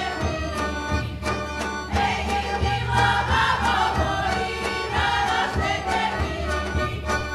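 Macedonian folk dance music: a group of voices singing together over a steady drumbeat.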